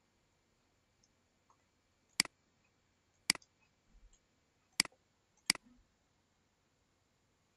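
Computer mouse clicking: four sharp single clicks about one to one and a half seconds apart.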